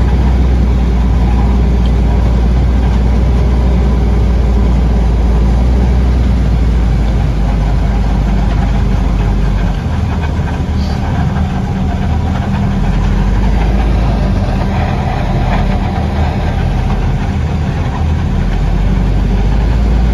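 Diesel engines of a silage truck and a Claas Jaguar forage harvester chopping corn, heard from inside the truck's cab: a steady low drone that dips and shifts about ten seconds in.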